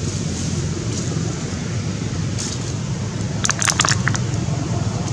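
Wind rumbling on the microphone. About three and a half seconds in, a short burst of crinkling plastic as a macaque handles a snack packet, with a fainter crinkle a little before it.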